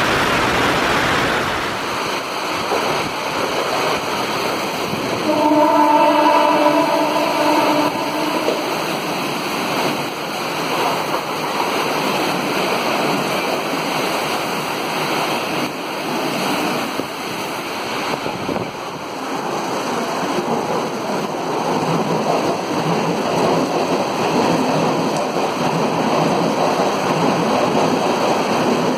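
Heavy rain pouring down in a steady roar while an electric local train runs through the station at speed. A steady multi-tone train horn sounds for about two and a half seconds, around six seconds in.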